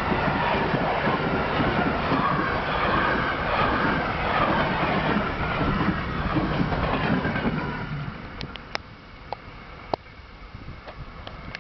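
Green Cargo freight train's wagons rolling past at speed, a steady rush and clatter of wheels on rail. The end of the train passes about eight seconds in and the noise falls away to a softer hiss of wind, with a few sharp ticks.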